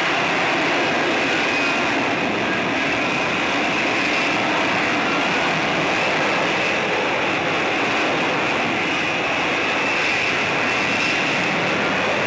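F-35B Lightning II hovering in short take-off and vertical landing mode, its F135 jet engine and shaft-driven lift fan giving a steady jet roar.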